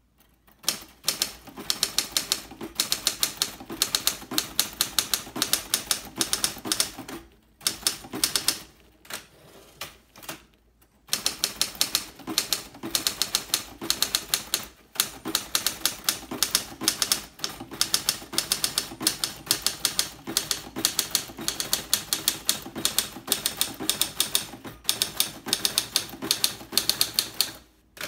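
Hermes Ambassador manual standard typewriter being typed on quickly: a fast, dense run of key and typebar strikes against its rock-hard platen. The strikes break off twice briefly about a third of the way through.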